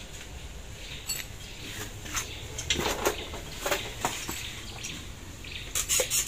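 Scattered light metal clinks and knocks of loose engine parts being handled. Near the end a quick, rhythmic scraping starts, like metal being rubbed or filed by hand.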